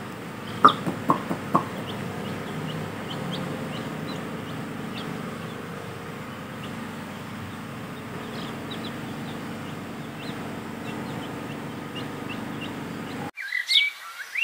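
Domestic chicks peeping: a long run of short, high cheeps over a steady background hiss, with three louder sharp sounds about a second in. The peeping breaks off abruptly near the end.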